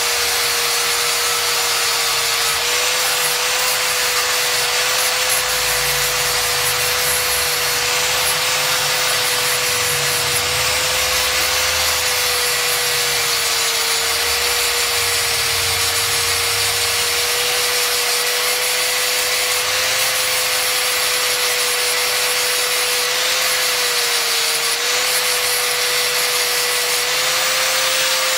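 Angle grinder with a sanding disc running continuously while a knife is pressed against the spinning disc: a steady motor whine that dips slightly in pitch now and then under the load, over the hiss of sanding.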